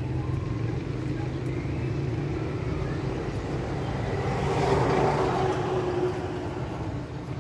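A motor vehicle passing by: its noise swells to a peak about five seconds in and then fades, over a steady low hum.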